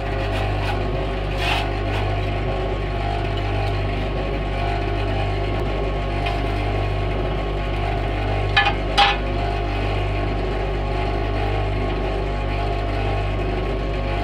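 Steady drone of a forge's air blower forcing air into the fire, which throws up sparks. A couple of sharp clicks come close together about halfway through.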